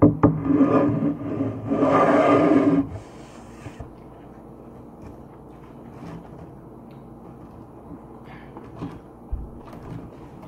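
A loud, drawn-out vocal sound from a person at the table, in two stretches over about the first three seconds, with no words in it. After that only faint clicks and handling sounds of eating.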